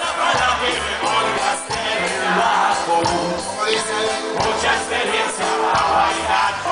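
Live band playing through stage speakers, heard from the crowd: drums, guitar and vocals, with crowd noise along.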